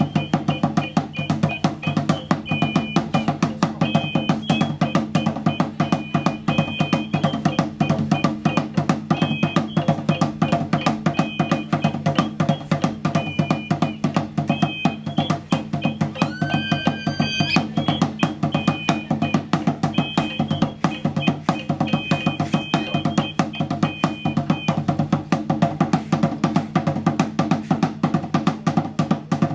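Ritual dance music driven by fast, steady drumming with a deep drum underneath, and a high piping melody in short repeated phrases over it. About sixteen seconds in, a brief sound rises in pitch.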